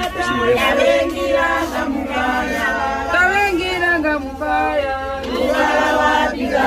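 A group of people singing together in chorus, a chant-like song.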